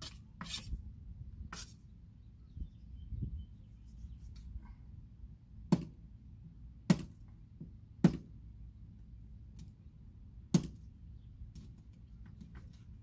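Cutting up a chicken by hand: a series of sharp clicks and cracks at irregular intervals, about six in all, the loudest four in the second half.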